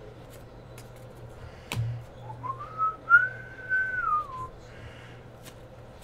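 A person whistling one note that slides up, holds, and slides back down, lasting about two seconds. Light clicks of trading cards being handled come and go around it, with a sharper snap just before the whistle.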